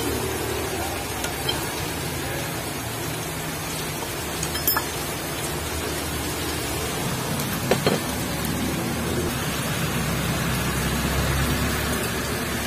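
Steady hissing background noise with a low hum, broken by a sharp metallic click about a third of the way in and a quick double click a little past halfway, from steel crankshaft parts being handled on a steel fixture and bench.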